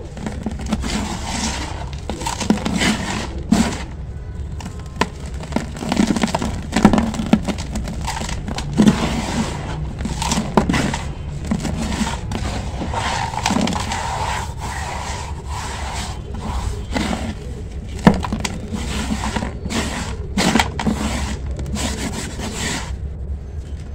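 Dry sand-cement chunks crushed and crumbled by hand and rubbed through gritty powder: irregular crunching and scraping that stops shortly before the end. A steady low hum runs underneath.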